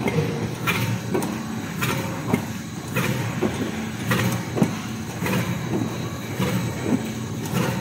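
Twisted dog-chew extrusion line running: a steady low machine hum with irregular sharp knocks and clicks every half second or so.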